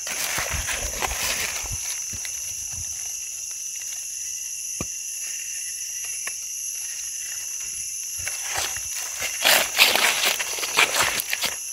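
Footsteps in rubber boots crunching through dry leaf litter, dying away for a few seconds in the middle with only a couple of small clicks, then crunching again, louder, near the end. A steady high-pitched whine sits under it throughout.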